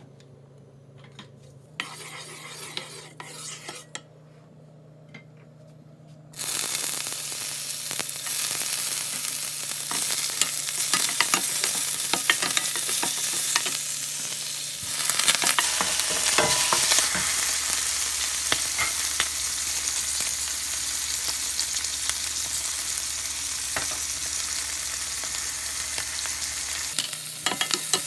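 Vegetables sizzling in hot oil as they are stir-fried in a pan. The sizzle starts suddenly about six seconds in, after a few light knocks.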